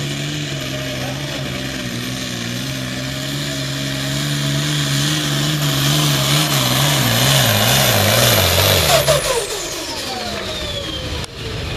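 Turbocharged diesel pulling tractor running flat out under full load on the sled. It grows louder and its pitch wobbles as it lugs against the building weight. About nine seconds in the throttle is cut: the engine note falls away and a high turbo whine winds down over the next two seconds.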